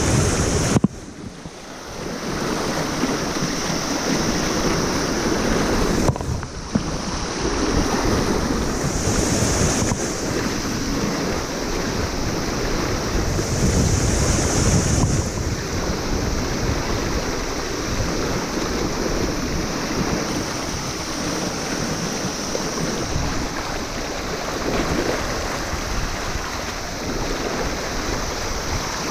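Fast, shallow river rapids rushing close to the microphone, with wind buffeting it. The sound drops away suddenly for about a second, about a second in.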